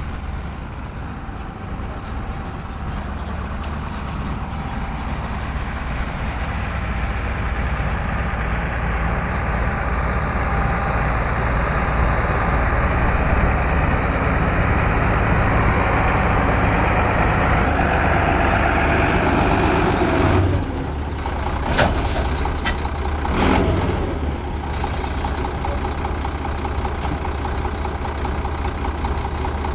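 D80 combine harvester running steadily, its engine and machinery slowly growing louder, then dropping off suddenly about two-thirds of the way through, followed by a couple of sharp knocks.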